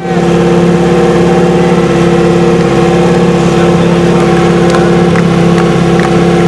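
Portable fire pump engine running steadily at a constant speed, loud and close, ready before the start of a fire attack.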